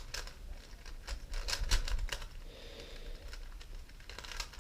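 Megaminx twisty puzzle being turned by hand: a quick, irregular run of plastic clicks and clacks as its faces are turned.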